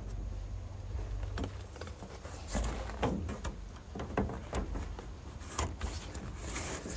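Irregular knocks, taps and scrapes of a polycarbonate double-wall roof panel being handled and slid into the grooves of wooden greenhouse rafters, over a low rumble.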